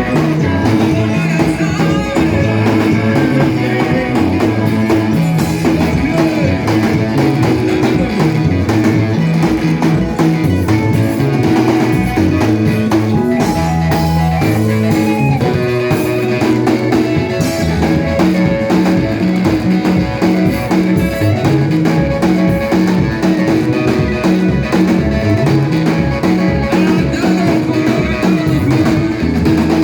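Worship band music with guitar, bass and drums playing a steady beat.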